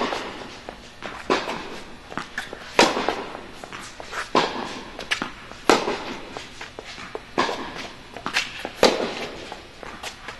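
Tennis balls struck by rackets in a rally on an indoor court: a sharp pop with an echo about every second and a half, with lighter ball bounces and footsteps between the hits.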